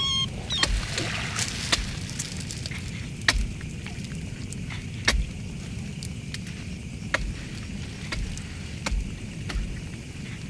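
Scattered sharp knocks and low thumps at irregular intervals over a steady low rumble.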